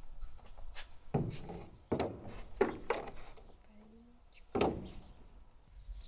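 A handful of knocks and thuds, about five over four seconds, each with a short ringing tail; the third and fourth come close together.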